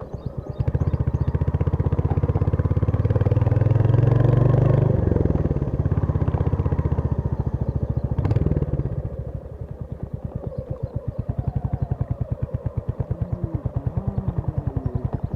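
Royal Enfield Hunter 350's single-cylinder engine running under throttle, easing off about five seconds in, then thumping at low revs with distinct, evenly spaced beats. There is a sharp click about eight seconds in.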